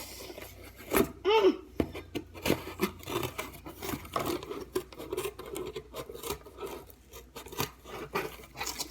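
Scissors cutting through cardboard: a run of snips with the blades scraping and rubbing on the box. A brief vocal sound about a second in.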